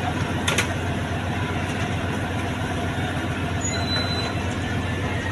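An engine running steadily, a continuous low mechanical noise, with a single sharp knock about half a second in.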